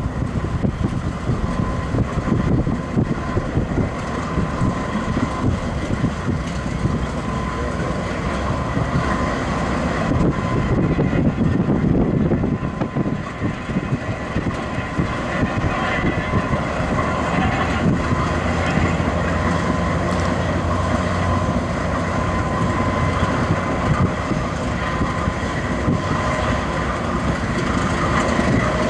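GE AC4400CW diesel locomotive idling while it rotates on a turntable: a steady low engine rumble with a thin, constant high whine over it. Wind noise on the microphone.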